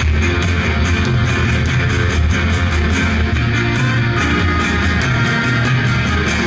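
Live rock band playing a song through a concert PA, loud and steady: strummed guitars over a heavy bass line, with saxophones in the line-up.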